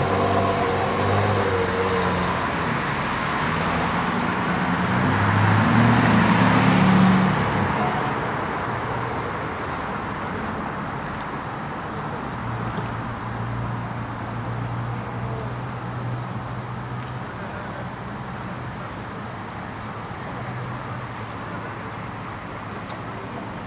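Road traffic: a vehicle passes close by, growing louder to a peak about seven seconds in and then dropping away, followed by steady traffic noise with a low engine hum.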